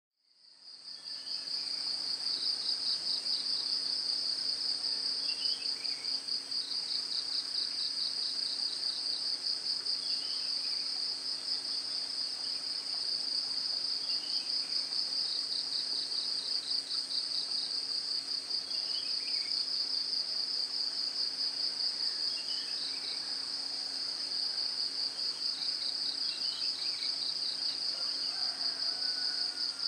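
Insects trilling in a dense, continuous chorus: a high-pitched, rapidly pulsing buzz that fades in over the first second. A faint short falling note recurs every few seconds.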